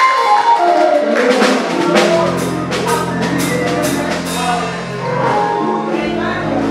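Live church band music: a drum kit keeping a steady beat of hits over held chords and a bass line.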